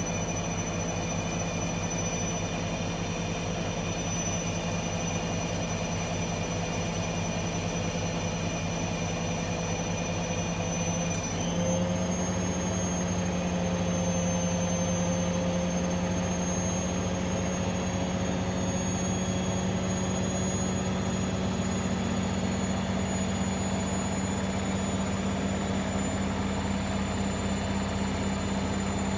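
Hoover washing machine running with a steady high-pitched whine over a low hum. About eleven seconds in, the whine and hum step up in pitch, then creep slowly higher.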